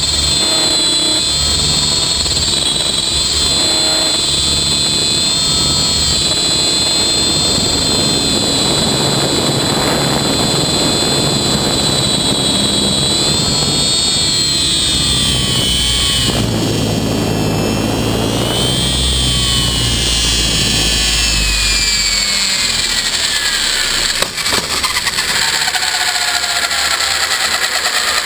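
Electric RC helicopter (Rave 90 ENV) heard from its own tail boom: a high-pitched whine from the electric motor and gear drive over rotor noise, the pitch wavering with the flying. In the last few seconds, after landing, the whine falls steadily in pitch as the rotor spins down, with one brief knock along the way.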